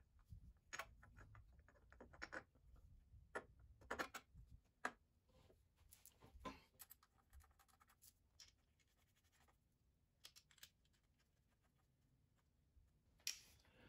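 Faint, scattered clicks and light scrapes of an aluminium cylinder head being set over its studs onto a Honda CR125 cylinder and the head nuts being started by hand, with a quiet stretch in the middle.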